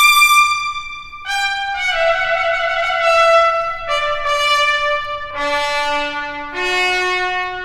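Solo trumpet playing a slow line of held notes. It opens on a very high note, breaks off about a second in, then steps down note by note to a low note a little past halfway, and climbs again near the end.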